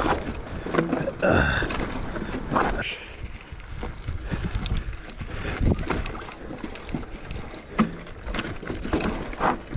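Mountain bike riding down a rocky dirt trail: wind buffeting the microphone, tyres rolling over dirt and stones, and the bike clattering with frequent knocks over bumps. A brief high-pitched squeal about a second in.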